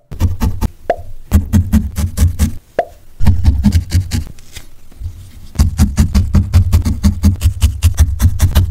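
Felting needle stabbing repeatedly through wool into the foam pad beneath: quick soft thuds, about five or six a second, with a short pause a little under three seconds in.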